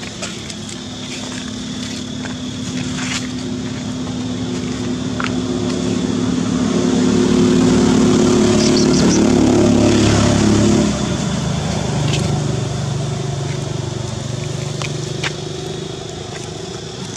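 A motor vehicle's engine running as it approaches and passes, growing louder to a peak about eight to ten seconds in, then cutting down suddenly; a lower engine sound carries on after it, with a few sharp clicks.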